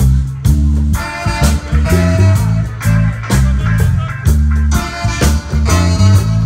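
Reggae music with a heavy bass line, drums and guitar.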